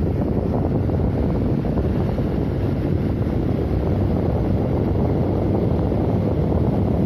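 Air Monster box fan running steadily, its airflow blowing onto the microphone as a steady low rushing.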